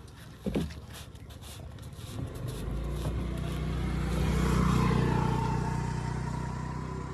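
A motor vehicle's engine running with a low, steady note that grows louder and then fades, as when it passes by. There is a short knock about half a second in.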